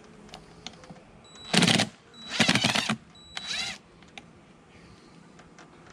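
Three short scraping, grinding bursts starting about a second and a half in, the last with a slight squeak: a glass feeder jar being twisted and lifted off the top of a beehive nuc box.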